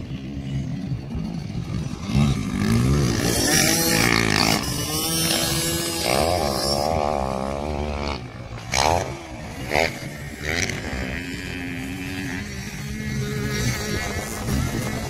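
Dirt bike engines revving up and down as the bikes ride the track, the pitch rising and falling with throttle and gear changes, with two short sharp revs about nine and ten seconds in.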